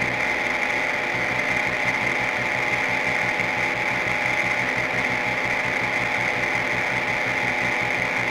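Noise music: a fast, even machine-like clatter under a steady high-pitched buzz and held tones, running unchanged and without a break.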